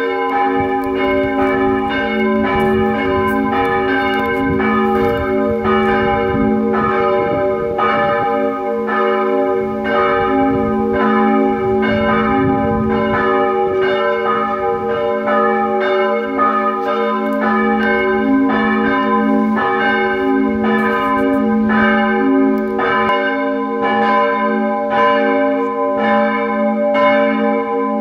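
Steel church bells ringing in a steady peal, the strokes coming roughly every two-thirds of a second, with each stroke's hum running into the next.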